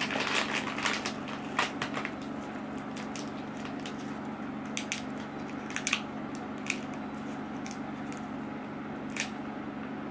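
Plastic candy wrapper crinkling as an individually wrapped orange chewy candy is taken from its bag and unwrapped by hand. A dense run of crackles comes in the first two seconds, then scattered single crinkles until near the end.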